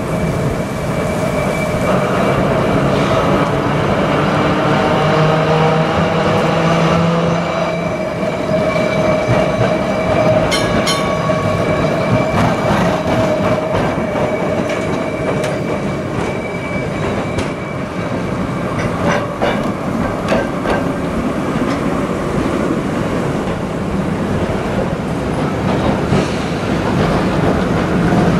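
Vintage electric trams (Trondheim's 1942 and 1958 city cars and a 1955 Gråkallbanen car) rolling past one after another on street track: a steady rolling rumble with a steady high whine, and wheels clicking over rail joints from about a third of the way in.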